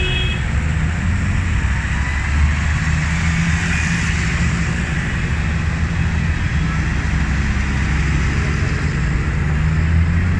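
Large modern farm tractors driving past one after another, their diesel engines running steadily with a low drone.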